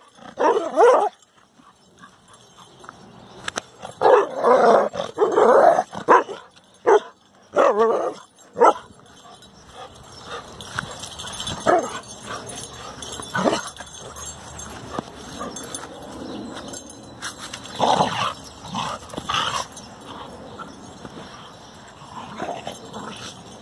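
A Carolina dog barking and yipping in excited play, in quick bursts through the first nine seconds, then only now and then.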